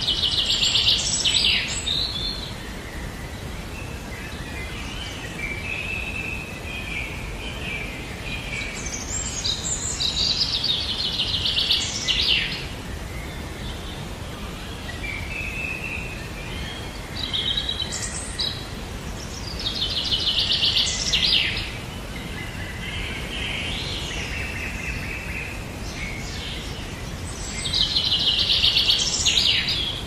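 Songbirds singing. One bird repeats a loud, rapid trilled phrase about two seconds long four times, each ending in a quick downward note. Softer warbling song fills the gaps, over a steady low background noise.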